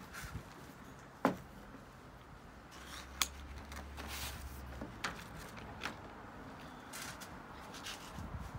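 Desk supplies being handled on a plastic folding table: a few sharp taps and knocks as a tape roll and papers are moved and set down, with light paper rustling between them.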